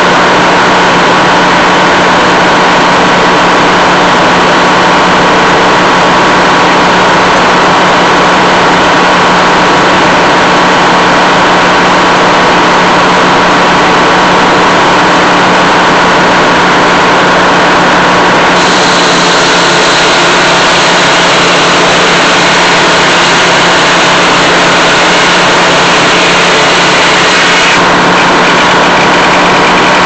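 Old Meadows circular sawmill running under its belt drive, a loud steady machine hum with a constant low tone. From a little past halfway to near the end a higher hiss joins it as the big circular blade saws through a log, then drops away.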